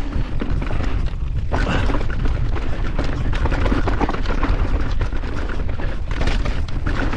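Mountain bike riding over rough trail at speed: the bike rattles and knocks constantly over bumps, under a steady low rumble of wind on the camera microphone.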